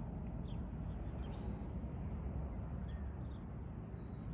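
Outdoor ambience: a steady low rumble with a few short, faint bird chirps and a faint, fast high-pitched ticking.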